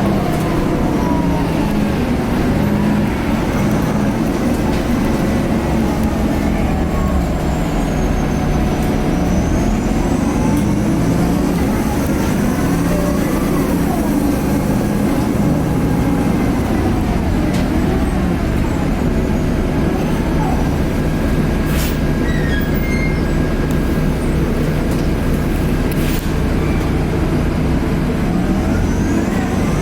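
Cabin sound of a 2010 Nova Bus LFS articulated bus under way, with its Cummins ISL inline-six diesel running and a steady rumble. A turbo whine rises and falls with the engine. Two short sharp knocks come about two-thirds of the way through.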